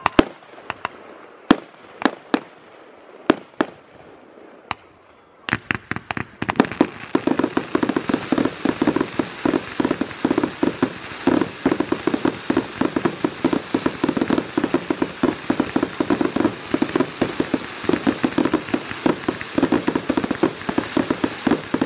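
Fireworks going off: a handful of separate sharp bangs over the first five seconds, then from about five and a half seconds in a dense, rapid crackling and popping that keeps on.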